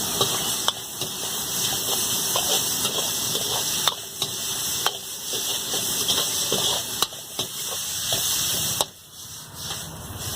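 Street-food cooking: a steady sizzling hiss, broken now and then by the sharp clicks of a metal utensil striking a pan or bowl as the food is stirred.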